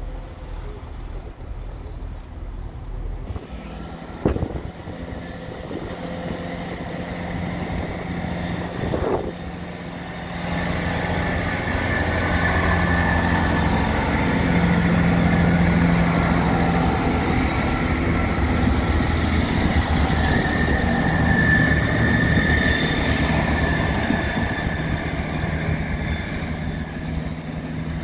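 Chiltern Railways class 165 diesel multiple unit approaching and passing close by, its underfloor diesel engines and its wheels on the rails. The sound grows over the first ten seconds, is loudest while the carriages go past, and eases off near the end as the train moves away. There is one sharp knock about four seconds in.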